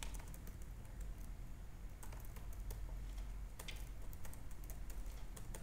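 Typing on a computer keyboard: irregular key clicks at an uneven pace, over a steady low hum.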